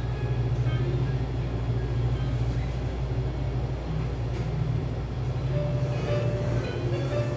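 A steady low machine hum throughout, with faint pitched tones, like quiet background music, coming in during the second half.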